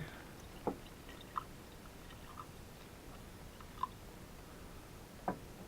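A few faint, scattered clicks and small taps from handwork at a car battery while its cells are being topped up with distilled water.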